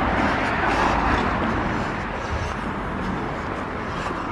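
Road traffic on the concrete road bridge overhead: a steady rush of tyre noise that swells and then slowly fades.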